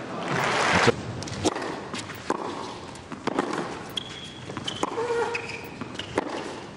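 Tennis rally on a hard court: racquets striking the ball back and forth in sharp pops about once a second, with short high squeaks of shoes. A brief burst of crowd noise fills the first second.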